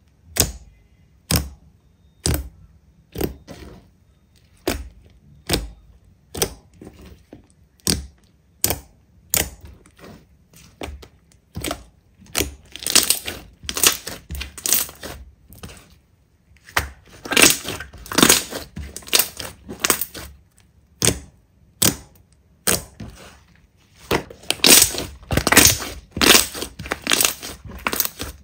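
Slime being worked by hand, giving a string of short, sharp squishes and pops. They come singly, about one a second, at first, and in quick, dense clusters from about halfway.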